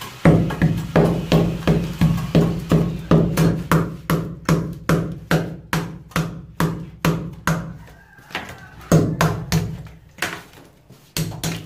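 Hammer driving a chisel into a concrete hollow-block wall, chipping out a recess for a switch box: steady blows about two to three a second, pausing briefly about eight seconds in, then a few more blows near the end.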